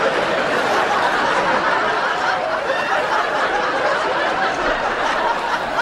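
Studio audience laughing, a sustained crowd laugh that holds at a steady level throughout.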